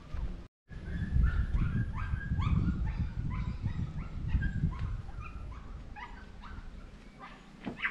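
An animal yelping: short, high calls that sweep in pitch, two or three a second, over a steady low rumble.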